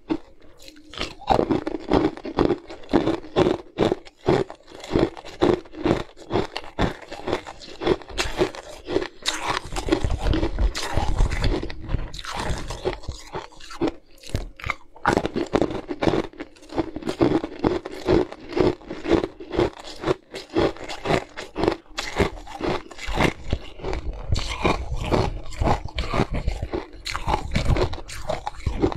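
Close-miked crunching of hard ice pieces being bitten and chewed: a long, rapid run of sharp, brittle crunches, a few each second.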